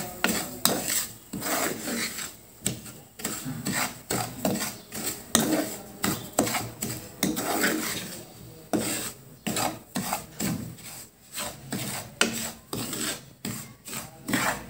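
Wooden spatula scraping and stirring dry semolina around a pan in repeated short rasping strokes, about two a second, as the semolina is lightly roasted in ghee.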